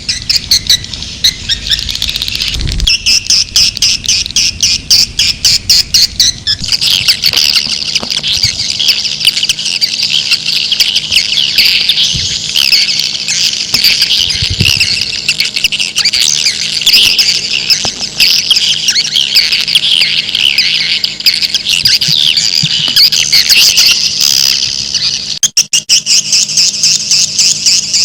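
Swiftlets twittering in a dense, rapid chatter of high chirps, from a swiftlet call recording used as a lure for swiftlet houses. The chatter briefly drops out near the end.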